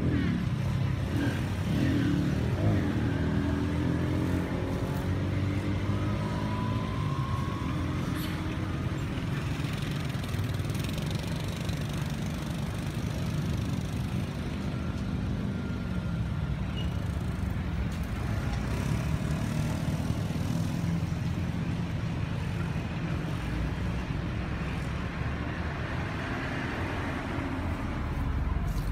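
Steady low rumble of motor vehicle engines. During the first several seconds one engine's note shifts slowly in pitch.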